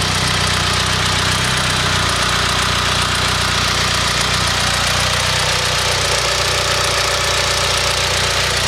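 Mitsubishi 4G63 turbocharged inline-four running steadily at a constant speed, with a fast, even knock under the running. This is a weird noise that the owner suspects is a spun bearing.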